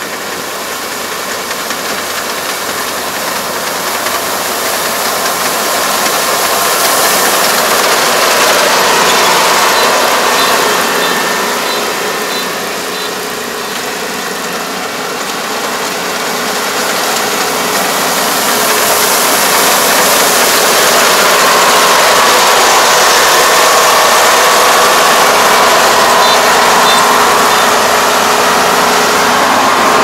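Kubota ER470 combine harvester running as it cuts flattened rice, its engine and threshing machinery growing louder as it comes closer. The sound eases briefly about halfway through, then stays loud.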